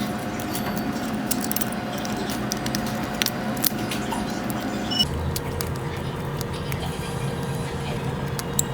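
Scattered light metallic clicks and taps of small tools being handled, over a steady background hum.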